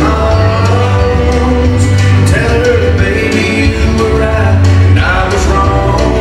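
Country song with singing over a steady, loud dance beat.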